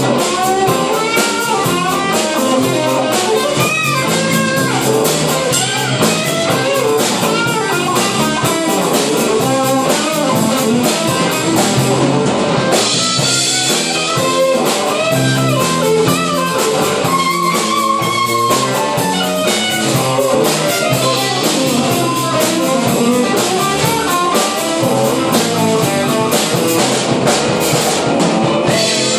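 Live blues-rock trio playing an instrumental passage: electric guitar lines over electric bass and a drum kit, with a long held guitar note past the middle.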